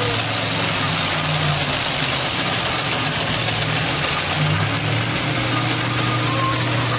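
Diesel farm tractor engine pulling hard under full load, a steady deep drone with a constant rushing noise over it.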